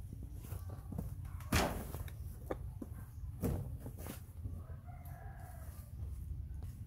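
A rooster crows faintly in the background about five seconds in. A few sharp knocks and rustles come before it, the loudest about a second and a half in, over a steady low hum.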